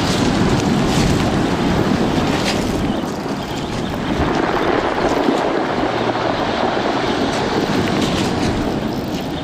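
Sea surf breaking and washing up over a pebble beach, a steady rushing wash that swells and eases with the waves, with wind buffeting the microphone.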